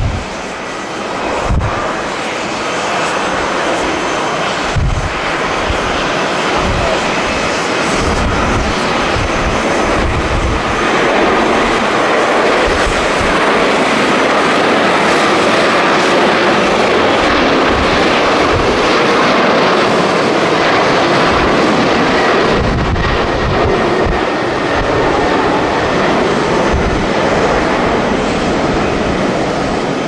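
Boeing 777 twin-jet airliner at takeoff thrust on its takeoff roll and lift-off: a loud, steady jet roar that builds over the first ten seconds or so and then holds. Strong wind buffets the microphone with irregular low thumps throughout.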